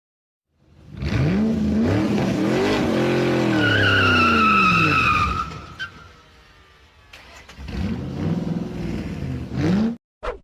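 A car engine revving up and down, with a high tyre squeal a few seconds in, then a second, quieter round of revving near the end.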